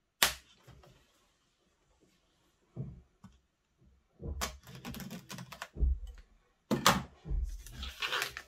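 Scissors snipping through the plastic shrink-wrap on boxed hardback sets, with the film crackling and crinkling as it is cut and pulled away. There is a sharp snip just after the start, a loud knock of the box about two-thirds through, and a run of small clicks.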